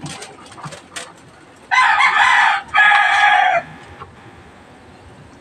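A rooster crowing once, a call of about two seconds in two parts, starting about two seconds in. Light clicks before it.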